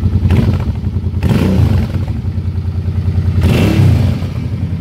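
Suzuki Boulevard C50T's 805 cc V-twin running through its stock chrome mufflers, which have been drilled with several holes. It is revved twice with blips of the throttle, about half a second in and again around three and a half seconds in, over a pulsing idle. On the revs the beat sounds uneven, out of step rather than in time.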